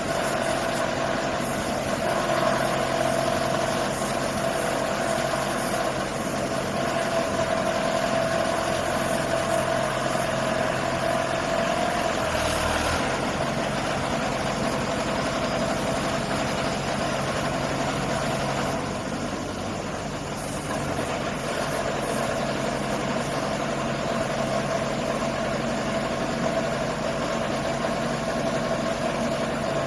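Engine of a crawler-mounted water well drilling rig running steadily, its note shifting briefly about halfway through.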